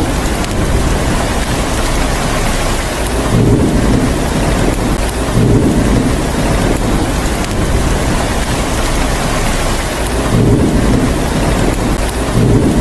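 Steady, heavy rain hissing throughout, with low rumbles of thunder that swell and fade several times.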